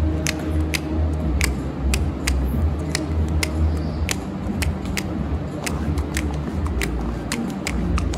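Juggling clubs slapping into the hands as they are caught, sharp clicks at an uneven pace of about one or two a second, over a steady low hum.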